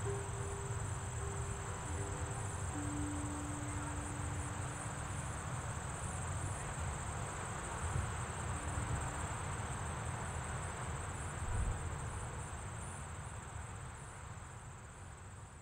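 The large tuned tubular wind chimes of the Flight 93 Tower of Voices sound a few long, overlapping tones in the first half. Under them run a steady high drone of insects and a low rumble of wind, and the whole fades out toward the end.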